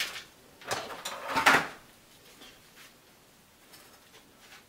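Kitchen handling noise from a foil-lined metal sheet pan as a meat thermometer is pulled out of a baked stuffed chicken breast: two short rustling, scraping bursts about a second in, the second the louder.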